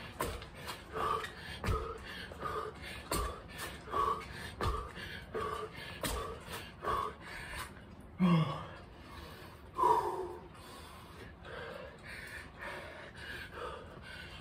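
A man breathing hard in quick, rhythmic breaths during a plank side-hop exercise, with light thuds from his feet landing. He gives a loud gasp about eight seconds in and another hard breath near ten seconds, after which the breathing eases.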